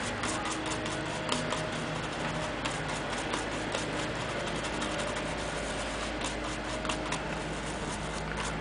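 A stiff-bristled brush scrubbing a printed circuit board around a microcontroller's pins, a rapid, irregular scratching made of many small clicks, cleaning off residue left by desoldering.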